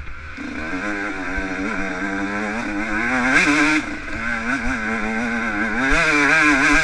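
Yamaha YZ125 two-stroke single-cylinder dirt bike engine, heard onboard, revving up and down as the rider works the throttle over rough trail. Its pitch rises and falls continually, with two harder full-throttle pulls, about three seconds in and again near the end.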